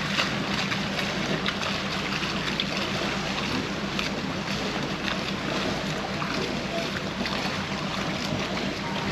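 A yacht under way: a steady engine hum, with an even rush of water and wind over it.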